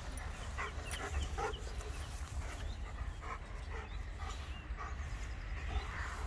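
A Kuvasz dog panting in short, irregular puffs, over a steady low rumble.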